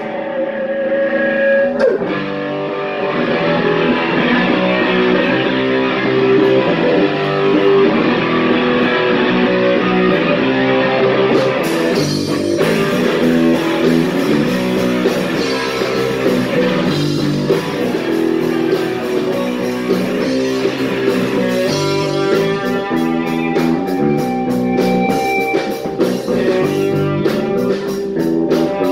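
Punk rock band playing live: electric guitar and bass, with the drums and cymbals coming in about twelve seconds in.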